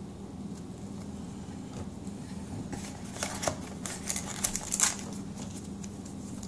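Paper and packaging being handled: a run of crisp rustles and light clicks lasting about two seconds, starting about three seconds in, as a printed guide is put aside and the next item is taken out of the box.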